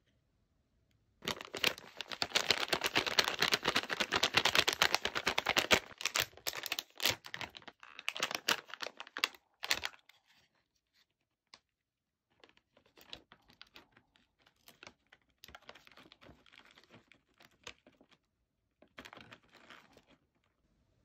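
Snack packaging being crinkled and torn open, a loud dense stretch of crackling for the first half, then fainter, intermittent crinkling.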